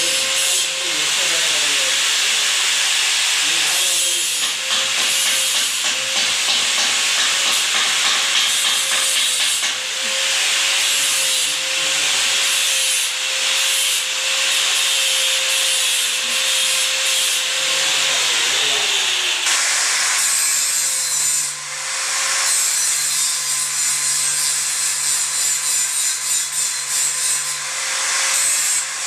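Handheld electric power tool running steadily against stainless steel railing, a constant motor whine under a gritty rubbing hiss. The pitch sags briefly several times as the tool is pressed into the metal. About twenty seconds in the sound drops out for a moment and resumes with a lower hum underneath.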